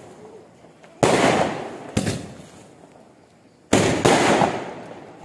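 Firecrackers and fireworks going off: a loud bang about a second in, a smaller pop a second later, then two more loud bangs close together near four seconds. Each bang fades away in a long echoing tail.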